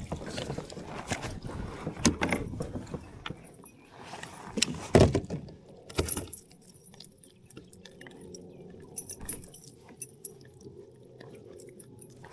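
Scattered metallic jingling and clicking with a few louder knocks: fishing tackle being handled in a kayak while a hooked bass is landed. A faint steady hum runs under the second half.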